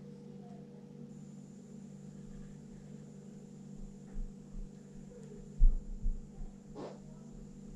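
A steady low hum, with several dull low thumps on the tabletop between about four and six and a half seconds in, the loudest about halfway through, and a short sharper knock just after them.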